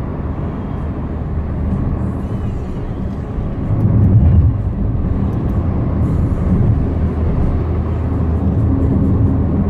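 Steady road and engine noise inside a car moving at highway speed: a low engine drone over tyre rumble. It swells briefly about four seconds in.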